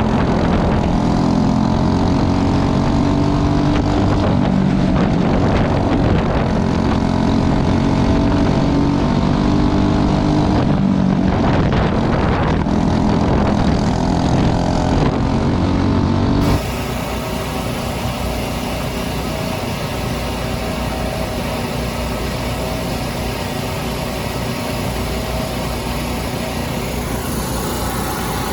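Racing engines running at speed, their pitches rising and falling. About two-thirds of the way in the sound cuts abruptly to a quieter, steadier engine drone.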